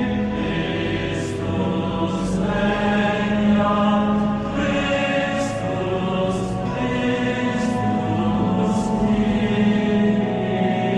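A group of voices singing a hymn in harmony, with slow notes held for a second or two.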